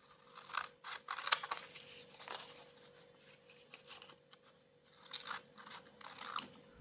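Scissors snipping through paper, a stamped tea bag glued onto sheet-music paper, in several short separate cuts with paper rustling between them.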